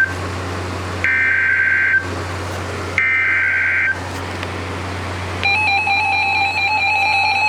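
Emergency Alert System header bursts from a weather radio: two harsh buzzing digital data bursts, each about a second long and a second apart, then after a short pause a steady attention tone begins about five and a half seconds in, announcing the next weather warning.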